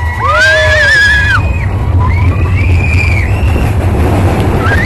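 Mine-train roller coaster cars running along the track with a steady low rumble. High, drawn-out squeals rise over it three times, the last starting near the end.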